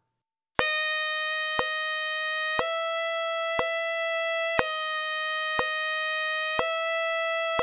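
Yamaha Custom 82Z tenor saxophone playing a long slurred line that alternates between high palm-key F and high F#, each note held about two seconds. It comes in about half a second in. A metronome clicks steadily once a second underneath.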